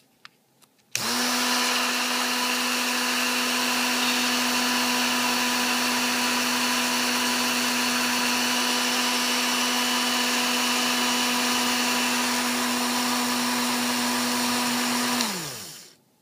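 Dremel rotary tool switched on about a second in, running at a steady high speed as it spins a plastic rod against the end of another to friction-weld them. Near the end it is switched off and winds down with a falling pitch.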